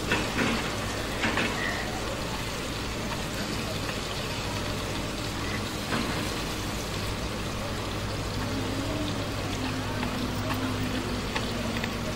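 Masala-coated fish frying on a shallow iron pan over a wood fire: a steady sizzle, with a few clicks of a metal spoon against the pan as the pieces are pressed and turned.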